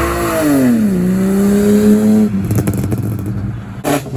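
Car engine revving hard as it pulls away from the lot. Its pitch climbs, drops quickly about a second in as it shifts gear, then holds and rises a little before the engine note gives way to rough, crackly noise a little after two seconds.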